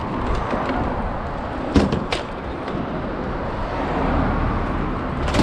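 Scrap metal poles being handled, with a couple of sharp knocks about two seconds in and a loud clank at the very end, over a steady low rumble.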